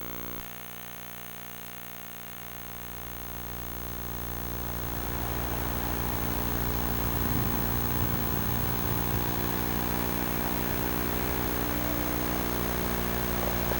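Steady electrical buzz recorded by a Sony Hi8 Handycam, with a rushing background noise that swells over the first few seconds and then holds steady.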